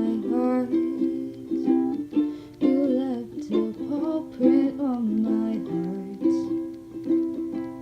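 Ukulele playing a gentle song. A singing voice glides over it for about the first five seconds, then the chords carry on alone.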